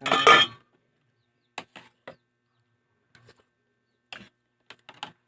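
Tableware clattering during a meal: one loud clatter at the start, then a scattering of short clicks and clinks.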